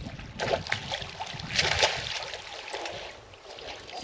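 Water splashing around a small boat, loudest for a moment about a second and a half in.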